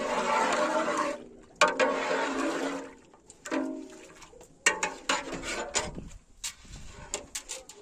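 Water rushing in two spells, then a string of short knocks and clicks.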